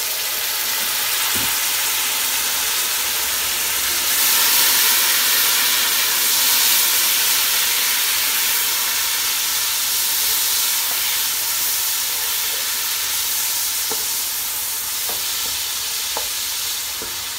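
Deep-browned sliced onions sizzling hard in hot oil in a pot as a little water is added to draw out their colour, the hiss of water and steam swelling about four seconds in. A few light knocks of a wooden spoon stirring near the end.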